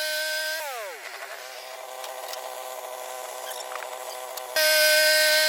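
Sawmill engine running at high revs, throttling down about half a second in and settling to a lower, uneven idle, then back at full revs near the end.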